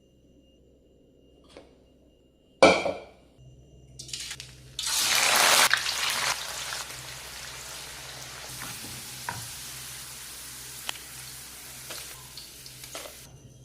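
A sharp knock of a pot or utensil, then food going into hot oil about five seconds in: a loud burst of sizzling that settles into steady deep-frying, with a few light clicks.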